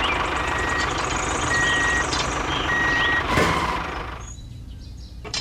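Truck reversing alarm beeping three times at an even pace over a running engine, which dies down about four seconds in.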